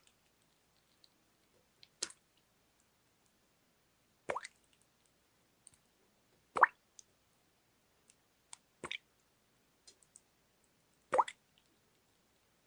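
Water dripping, one drop falling about every two and a quarter seconds, five drops in all, with a few faint softer ticks between them.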